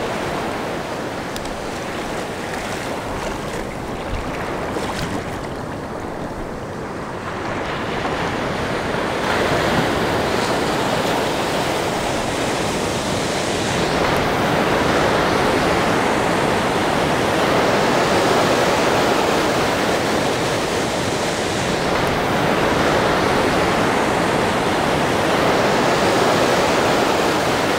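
Ocean surf breaking and washing through the shallows in a steady rush of foam, swelling louder about ten seconds in.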